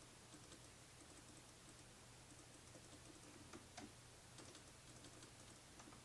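Faint, irregular key clicks from a HAVIT X1 mechanical gaming keyboard as keys are pressed in a game, with a couple of louder clicks a little past halfway.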